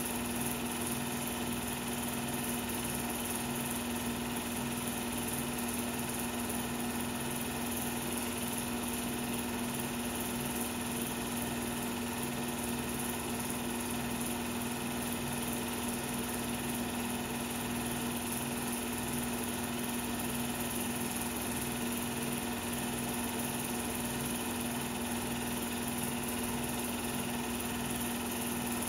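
A 16mm film projector running: a steady mechanical noise with a constant low hum, unchanging in level.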